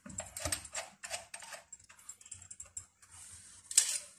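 Light metallic clicks and taps from the belt-tension adjusting nut and bracket on an industrial sewing machine's motor mount being turned by hand. The clicks come several in quick succession at first, then thin out, with one louder clack near the end.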